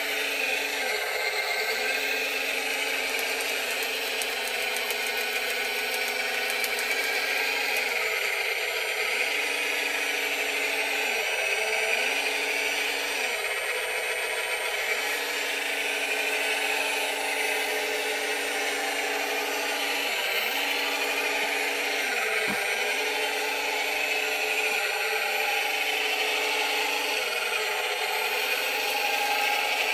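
Radio-controlled scale Cat 966 wheel loader's motors and gearing whining and rattling as it drives to and fro grading dirt. The motor tone drops briefly and picks up again several times as the loader stops and changes direction.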